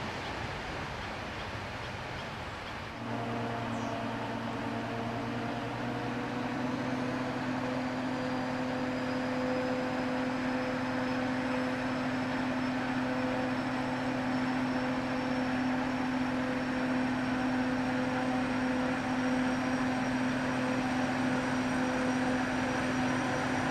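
Diesel locomotive engine running steadily under load while the locomotive puts out black exhaust smoke: a deep, even drone with a faint high whine that slowly rises, growing gradually louder. For the first three seconds there is the rumble of a passing train, which cuts off abruptly.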